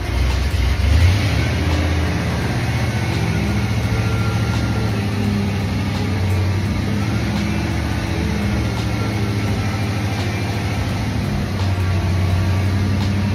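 Ford Bronco's engine running steadily at low speed as the truck creeps forward.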